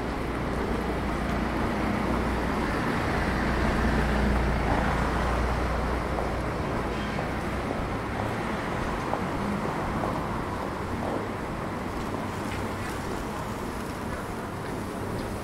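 Street traffic noise: a motor vehicle passes close, its rumble loudest about four seconds in, over steady road noise.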